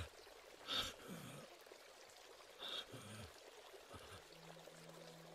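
Faint, heavy breathing of an exhausted, beaten man: two breathy gasps about two seconds apart, each ending in a low groan. Soft held music tones come in near the end.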